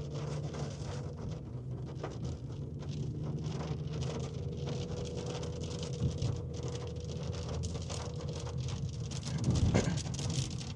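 Steady engine and road drone inside a moving car's cabin, with a hiss and light patter over it. There is a louder surge about nine and a half seconds in.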